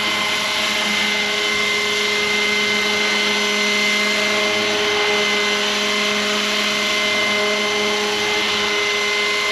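Roban 600-size Hughes MD500 scale RC helicopter running at its highest head speed, 1600 RPM, lifting off into a low hover: a steady whine with several fixed pitches over the rotor's wash.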